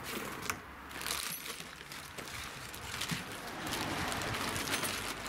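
Plastic packaging crinkling and rustling as a parcel of brushcutter parts is opened by hand, with small clicks and knocks of the parts inside.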